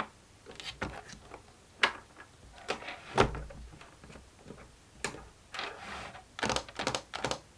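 Hands working a plastic fidget board toy: irregular clicks, taps and knocks with a few short scraping slides, the loudest knock about three seconds in.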